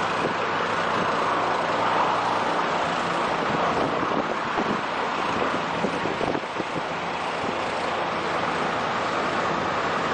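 Steady rush of wind and road noise from a moving vehicle, heard at its side window.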